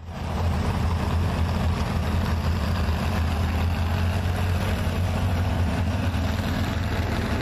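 Pickup truck engine running steadily at low revs, a deep even drone, as it pulls a loaded trailer at a crawl; the sound fades in at the very start.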